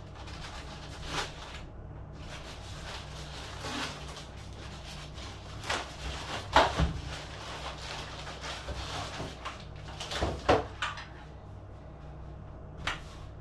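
Cardboard box and packaging being handled during unboxing: irregular knocks, thumps and rustling, the sharpest about six and a half and ten and a half seconds in.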